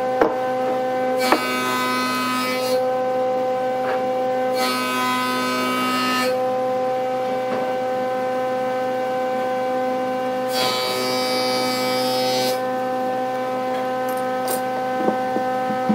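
Wood lathe running with a steady motor hum. A turning tool cuts the spinning wood in stretches, adding a hissing scrape that starts and stops every few seconds, with a few sharp clicks.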